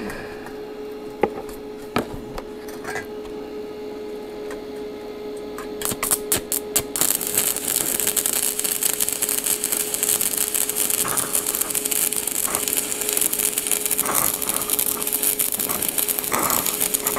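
Stick-welding arc from a small inverter welder. The electrode sputters in a few quick strikes about six seconds in, then the arc catches and crackles steadily for about ten seconds before stopping near the end, over a steady hum. The current is set high for the 2–3 mm sheet steel, and the arc burns through it.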